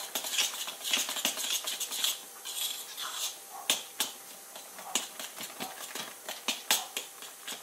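A metal fork stirring thick zucchini pancake batter in a mixing bowl: irregular clicks and taps of the fork against the bowl, with wet stirring sounds from the batter.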